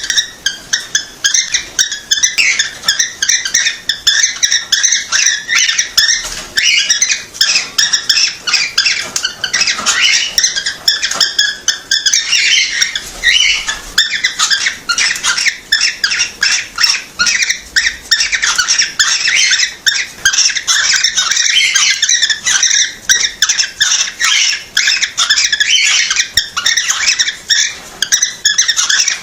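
Cockatiels chirping and whistling in a continuous rapid chatter of short, high-pitched calls.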